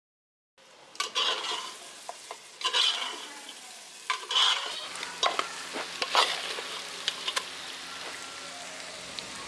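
Mutton and masala sizzling in oil in a pressure cooker, stirred with a spoon that scrapes the pot in strokes every second or two. This is the bhuna stage, frying the masala down until it clings to the meat. It starts about half a second in.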